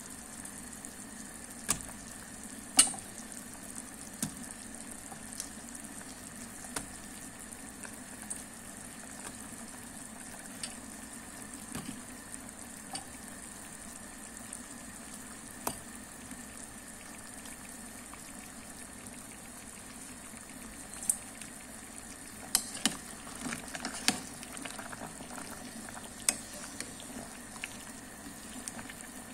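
Shrimp and vegetable soup simmering in an aluminium pot on the stove: a steady bubbling hiss, with scattered sharp clicks and a short run of taps late on.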